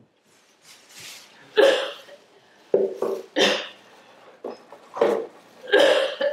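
A woman coughing and retching in a series of about five separate bursts, the loudest about a second and a half in.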